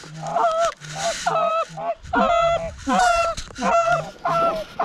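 Canada goose honks and clucks, loud and close, coming in quick succession about two a second, each breaking from a lower note to a higher one.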